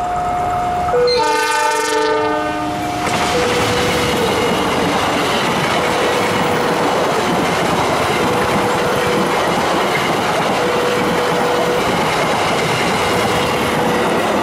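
KAI diesel locomotive sounding its two-tone horn on approach, the horn dropping in pitch as the locomotive passes about a second in. Then a rake of passenger coaches rolls by with steady wheel-on-rail noise and clickety-clack, a thin tone coming and going over it.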